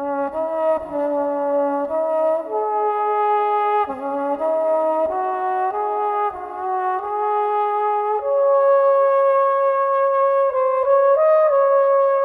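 Solo trumpet playing a slow melody that comes in suddenly, stepping between notes about every half second, then settling on one long held note about two-thirds through, broken by a few short notes near the end.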